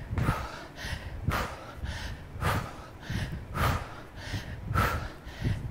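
A woman breathing hard through a set of squat touchdowns: a short, forceful exhale about once a second, five in all, in time with the reps.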